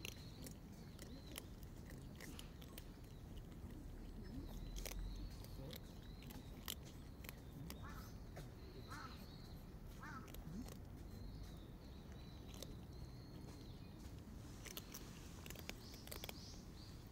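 Stray cats and kittens chewing dry kibble from a bowl: faint, irregular crisp crunches throughout. Birds chirp in the background.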